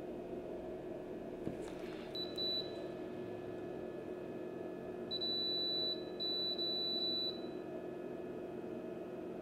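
Electronic beeping from bench equipment on an electronics repair bench: one short beep about two seconds in, then a longer beep and a broken run of beeps from about five to seven seconds. A steady low hum of running bench equipment lies under it.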